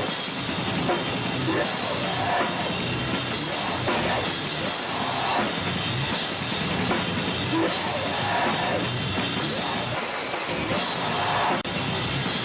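Hardcore band playing live, a loud, dense wall of amplified rock with the drum kit prominent. A brief dropout a little before the end.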